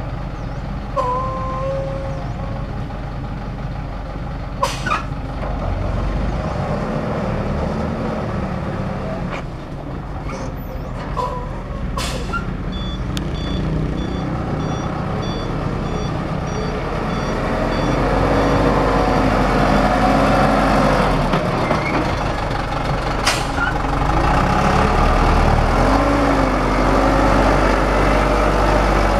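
Thaco Forland dump truck's diesel engine running as the loaded truck moves off on a dirt track, growing louder and higher about two-thirds of the way in. Through the middle a series of short, evenly spaced high beeps sounds, and a few sharp clicks or hisses stand out.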